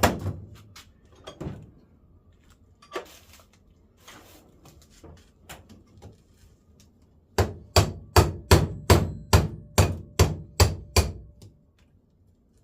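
Hammer striking a punch against the metal latch mechanism of a Jeep YJ hard door, to knock out a stubborn piece after its rivet was ground off. A few separate blows at the start, then a steady run of about a dozen strikes, roughly three a second, in the second half.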